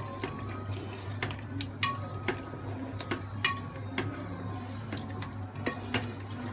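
A spoon stirring chicken karahi in a metal pot, clinking against the pot's side at irregular moments, about one or two a second, each clink ringing briefly. A steady low hum runs underneath.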